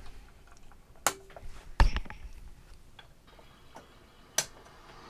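Handling noise: a few separate sharp clicks and knocks, the loudest a click with a low thump a little under two seconds in, with quiet between them.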